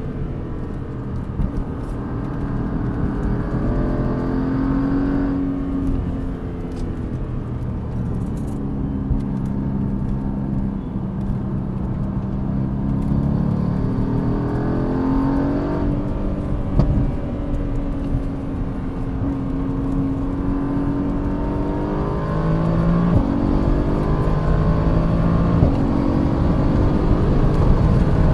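Mercedes-AMG GT C's twin-turbo V8 under hard track driving. The pitch climbs as it accelerates and drops sharply at each upshift, around five seconds in, again near the middle, and once more later on, over steady tyre and wind noise.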